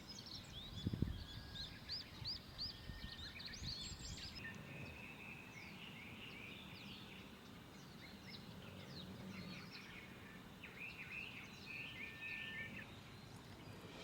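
Faint birdsong: several small birds chirping, with a quick run of short repeated notes in the first four seconds and busier, overlapping chirps after, plus a low knock about a second in.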